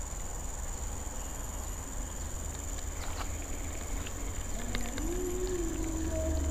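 Insects droning steadily at a high pitch, with wind rumbling on the microphone and growing stronger near the end. There are a few faint ticks, and a faint wavering hum comes in about five seconds in.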